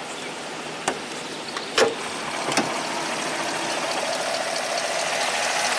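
Hood latch clicking about three times as the hood of a 2014 Chevy Silverado is released and lifted, then the running V8 and its ramped-up cooling fan whooshing steadily, growing louder as the engine bay opens; the fan is working hard because the engine is overheating.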